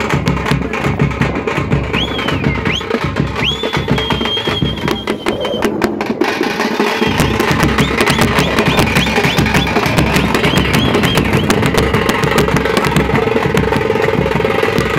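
Loud dance music with fast, dense drumming, and shrill whistles that slide up and hold between about two and six seconds in, with shorter whistles later. The sound changes abruptly about six seconds in.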